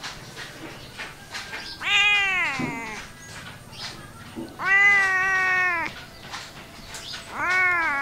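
Domestic cat meowing: three long, drawn-out meows of about a second each, coming about two, five and seven and a half seconds in. The first falls in pitch at its end, and the second is held steady.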